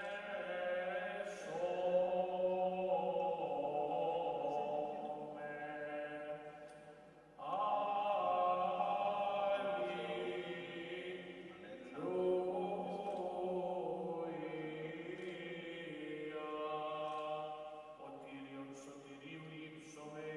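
Greek Orthodox liturgical chant sung in long, drawn-out notes over a steady held low note, with a short pause about seven seconds in before the next phrase.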